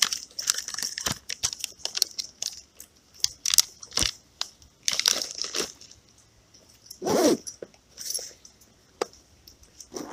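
Rummaging through a fabric backpack of fishing tackle: irregular rustling and crinkling with scattered clicks and taps, and a longer, louder scrape about seven seconds in.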